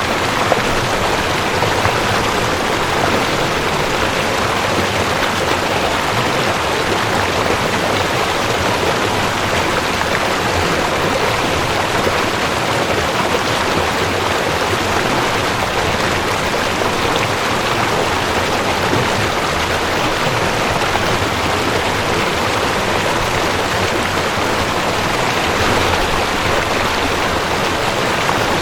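Mountain stream rushing over rocks: a steady, even wash of water noise that does not change.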